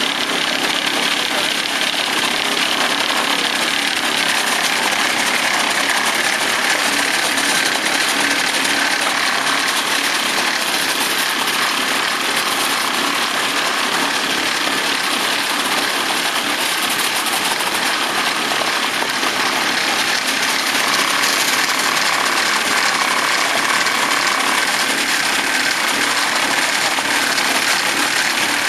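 Truss vibrating screed (RüMoo MSB) running, its electric vibrator motors making a steady, dense mechanical noise as the beam works across fresh concrete.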